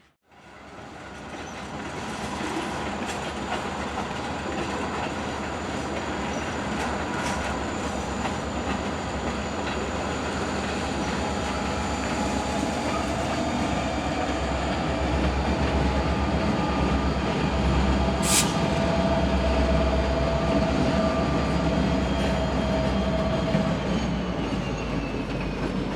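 Two CSX SD40-2 locomotives, each with an EMD 16-cylinder two-stroke diesel, working hard with a steady low rumble over the running noise of the train. The sound grows a little louder about halfway through.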